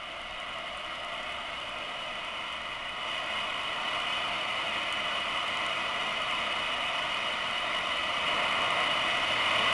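1938 RCA 810K tube radio's speaker giving out a steady hiss of static that grows gradually louder as the tubes warm up on first power-up after restoration, with the dial being tuned between stations.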